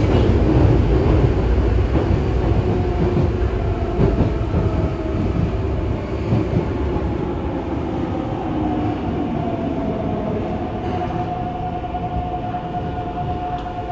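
Yokohama Municipal Subway 3000A-series train with Mitsubishi GTO-VVVF inverter control running, heard from inside the car: a heavy rumble of wheels on rail that slowly eases, with a steady whine coming in about halfway through.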